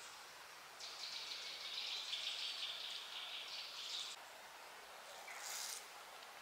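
Outdoor woodland ambience with a dense, high chirping that comes in about a second in and stops abruptly about four seconds in. A brief hiss follows near the end.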